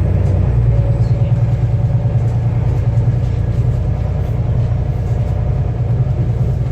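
Volvo B7TL double-decker bus's six-cylinder diesel engine running steadily, its note changing about half a second in.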